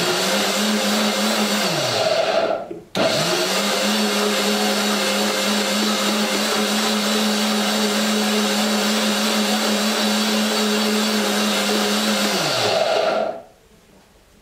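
Countertop blender motor blending cucumber purée in bursts. It stops briefly at the start, winds down and restarts about three seconds in, runs steadily for about ten seconds, then spins down with a falling pitch and stops.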